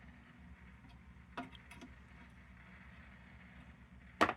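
A few faint clicks of small metal lantern parts being handled and worked, with a sharper click about four seconds in.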